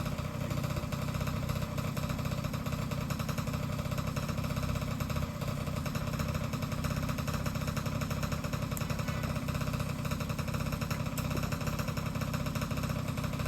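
A small engine or motor running steadily at idle, an even low hum with a fast regular pulse.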